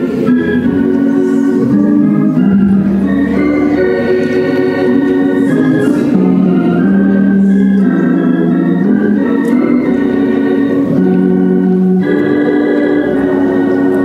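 Church organ playing slow, sustained hymn chords that change every second or two, as accompaniment to the invitation song.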